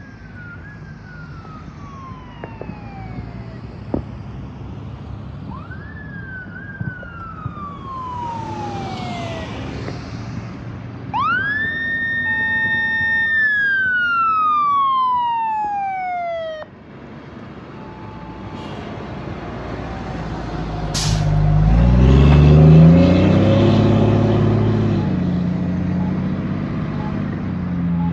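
Fire engine responding with its siren going: falling siren sweeps grow louder as it approaches, then a louder siren rises, holds a high note and falls away, and it cuts off suddenly about 17 seconds in. The truck's engine then passes close, loudest a little after the middle, its pitch rising and falling, with a brief hiss.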